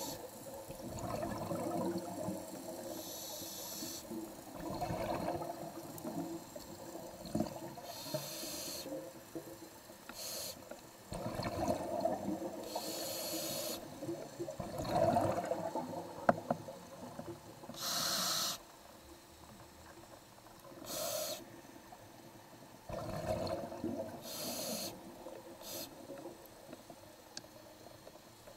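Scuba diver breathing through a regulator underwater: a short hiss with each inhale and a bubbling rumble of exhaled air, repeating every few seconds.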